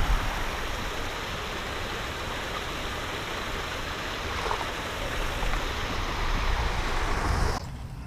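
Wind buffeting the microphone of a body-worn camera: a steady rushing noise with a heavy low rumble. It drops away abruptly near the end.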